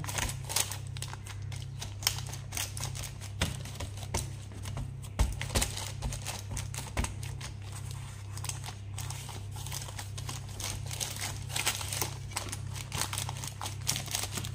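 Baking paper crinkling and rustling under gloved hands pressing pie-crust dough into a lined dish, a run of small irregular crackles over a steady low hum.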